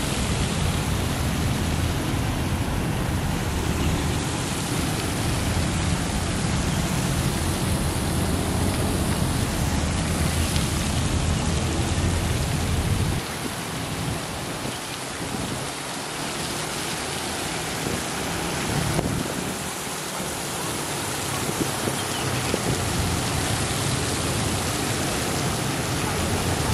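Fountain jets spraying and splashing back into a pond: a steady hiss of falling water, with a low rumble underneath that drops away about halfway through.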